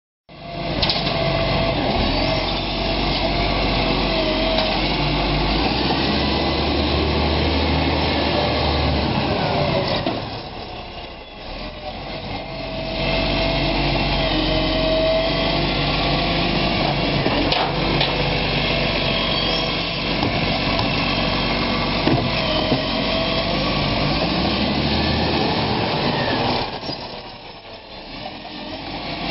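Iveco Acco side-loading garbage truck running close by, its diesel engine and hydraulic bin-lifting arm working while it collects wheelie bins. The sound drops away twice for a couple of seconds, about ten seconds in and again near the end.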